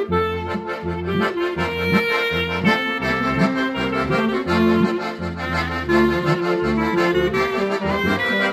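A small ensemble of accordion, clarinet, alto and tenor saxophones, trombone and tuba playing a Congregação Cristã hymn together. The accordion's held chords and the reeds carry the melody over a moving tuba bass line.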